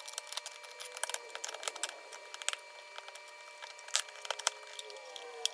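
Hard plastic clicking and rattling as a plastic bit holder is pushed and worked into a plastic Packout organizer bin, with a scatter of small clicks and a few sharper ones.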